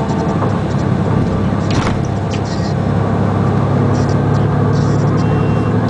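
Diesel engine of a Den Oudsten Alliance B96 City bus idling steadily, with a brief hiss about two seconds in.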